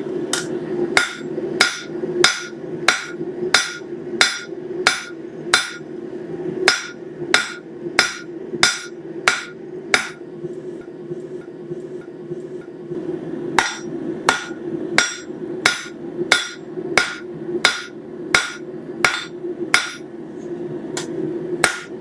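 Blacksmith's hand hammer forging a hot stainless steel knife blank on an anvil: sharp, ringing blows at about one and a half a second, a pause of about three seconds in the middle, then the same rhythm again. A steady hum runs underneath.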